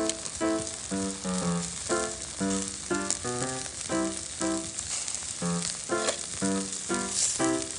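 Chicken wings sizzling on a charcoal grill grate: a steady hiss, with background music playing over it.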